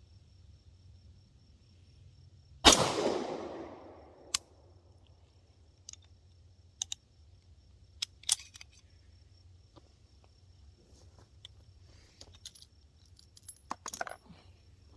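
A single pistol shot from a prototype handgun about three seconds in, its echo dying away over a second or so, followed by scattered sharp metallic clicks of the pistol being handled. The shot ends in a failure to extract, the spent case staying in the gun.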